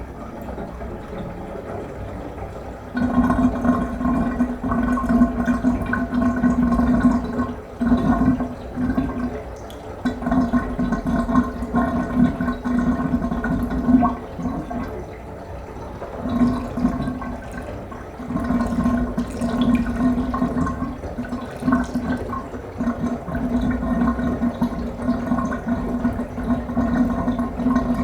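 Bathtub water running down the drain, with a rushing flow and, from about three seconds in, a low gurgle that comes and goes in stretches.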